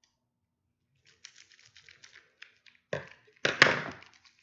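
Hands handling a plastic coin slab: a run of small clicks and taps, then two louder knocks and rustles about three seconds in.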